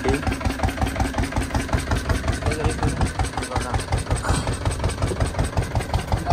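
Fishing boat's engine idling with a steady, fast chugging beat.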